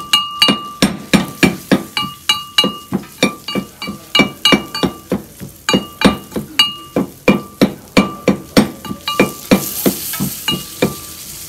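Heavy mortar and pestle pounding spices: a steady run of sharp blows, about three a second, each leaving a brief ringing note from the bowl. The pounding stops shortly before the end.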